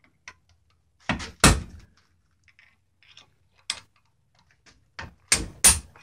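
Screwdriver prying and knocking at a 2008 Mercedes GL450 seatbelt retractor clamped in a vise: sharp metallic knocks and clicks, two about a second in, one near the middle and a quick cluster near the end. He is working out small pieces that the airbag firing in a collision shot up inside the retractor and jammed it.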